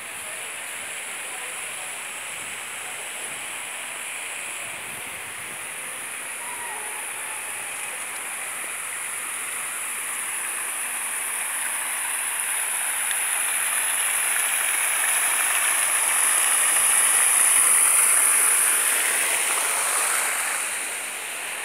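Water fountain splashing steadily, its jet falling back into the stone basin. The sound slowly grows louder, peaks about three-quarters of the way through, then eases off.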